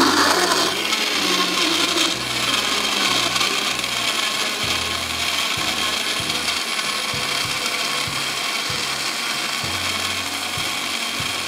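Countertop blender running steadily at full speed, churning milk, ice cubes, canned peaches and oats into a smoothie.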